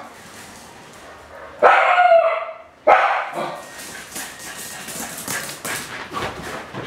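Wire fox terrier barking: a drawn-out, whining bark about one and a half seconds in, then a second short, sharp bark. After the barks comes a run of rapid scratchy rustling.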